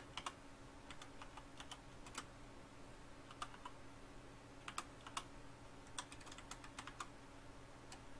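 Typing on a computer keyboard: sparse, irregular keystroke clicks with short pauses between words, over a faint steady low hum.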